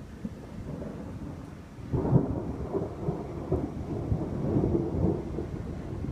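Thunder: a low rolling rumble with irregular cracks, swelling loud about two seconds in and rolling on.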